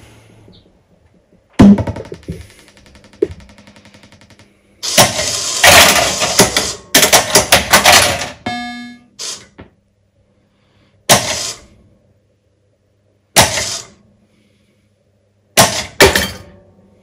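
Williams Fish Tales pinball machine powering up. A sharp thunk comes about a second and a half in. A few seconds of loud clattering sound from the machine follow, ending in a brief tone, then three short loud bursts spaced a couple of seconds apart, all over a steady low mains hum.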